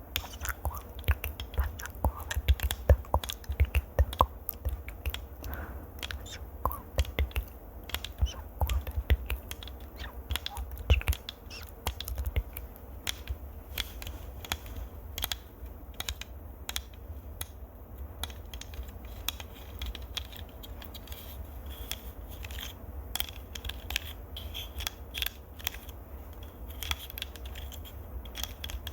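Close-miked ASMR trigger sounds: a dense, irregular run of small clicks and scratches right on the microphone, with a low handling rumble beneath.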